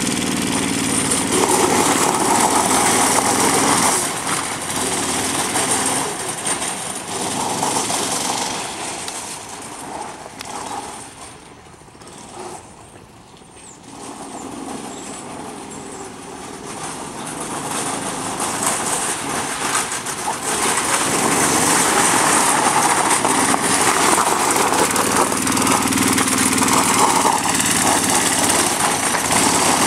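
Small 165cc go-kart engine running hard as the kart drifts on gravel, with tyres skidding and scattering gravel. The engine fades to faint about 11 seconds in as the kart drives off, then grows loud again as it comes back.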